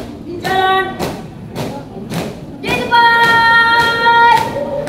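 A flag troop marching in step, boots stamping about twice a second. Over it a single voice shouts a drill command: a short call about half a second in, then one long held call from about three seconds in that steps up in pitch at its end.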